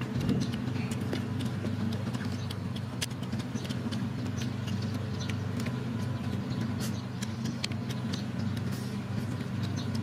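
A steady low engine-like drone, with scattered short sharp clicks and crunches from biting and chewing raw bitter melon.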